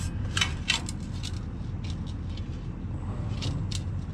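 Dump truck engine idling steadily, with a few short scraping and rubbing sounds of a hand working the steel side panels.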